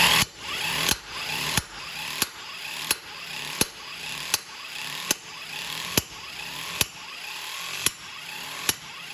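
A 12 V car impact wrench running on a wheel's lug nut: its motor runs steadily while the hammer knocks sharply about once every second, the knocks slowly spacing out as it works to break the tight nut loose.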